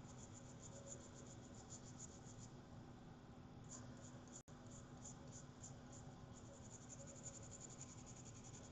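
Faint, quick, even scratching of a small brush scrubbing a freshly soldered phone logic board with alcohol to clean off flux, pausing briefly about a third of the way in, over a low steady hum.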